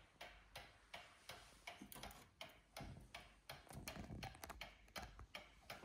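Antique Welch mantel clock's pendulum movement ticking, a faint, quick, even tick-tock, with a few low bumps about halfway through.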